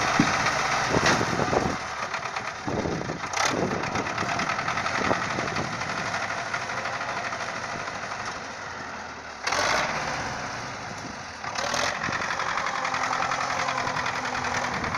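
An engine running steadily, with a few sharp knocks and sudden jumps in level.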